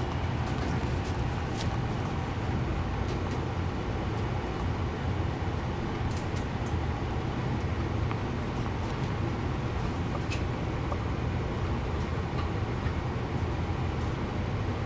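A steady low mechanical rumble, unchanging throughout, with a few scattered light clicks.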